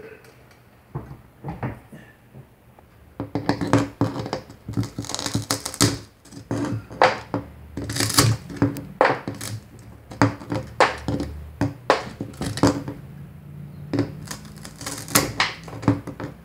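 Old glass being broken out of a leaded stained glass panel with pliers: a few sharp cracks at first, then from about three seconds in a dense, irregular run of cracking, crunching and clinking glass.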